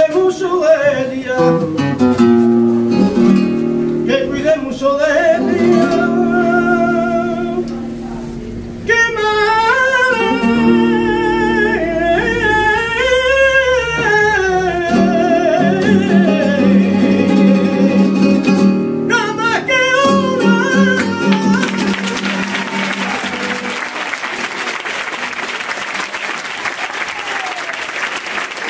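Flamenco cante: a man sings a long, wavering final line over an acoustic guitar, which ends a little over twenty seconds in. The audience then applauds.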